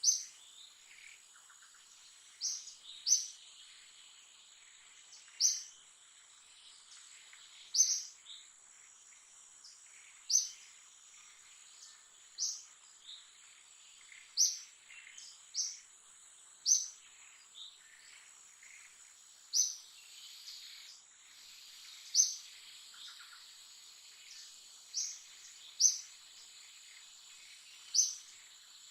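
Forest ambience: a steady high-pitched insect drone, with short sharp chirps repeating about every two to three seconds.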